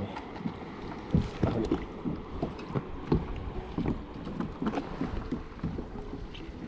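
Irregular knocks and water sounds on a fishing kayak, with wind on the microphone.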